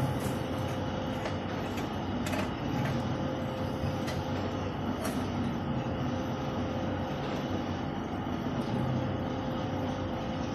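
Steady mechanical rumble with a low hum, and a few light clicks as a dial-gauge hardness tester's handwheel and load lever are worked on a shovel blade.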